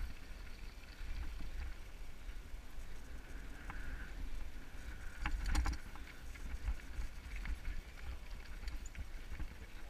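Mountain bike rolling over a rocky dirt trail: a steady rumble of knobby tyres on gravel mixed with wind on the microphone. About five and a half seconds in there is a short cluster of sharp clicks and rattles.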